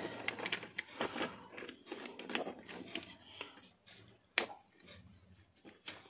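Small plastic parts of a toy RC rock crawler's front axle being handled and pressed into place by hand: light rustling and small clicks, with one sharp click about four and a half seconds in.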